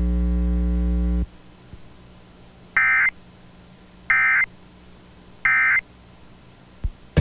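A loud low electrical hum cuts off about a second in. It is followed by three short, identical bursts of Emergency Alert System end-of-message data tones, about 1.3 seconds apart: the coded signal that closes the alert.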